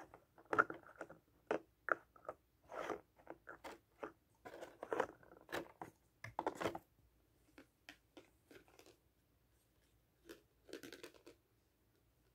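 Plastic toy ice cream pieces and a clear plastic stand being handled: irregular crinkling, clicking and rustling, busy at first and then sparse, with quiet gaps in the second half.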